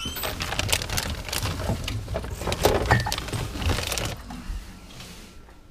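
Rustling and clatter of plastic bags and packages being rummaged through and grabbed, a busy run of knocks and crinkling that dies down after about four seconds.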